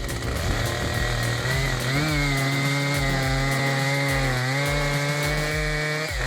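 Petrol chainsaw running at high revs and cutting wood. The engine pitch rises about two seconds in, sags briefly under load twice, and recovers. A low thump repeats about twice a second underneath.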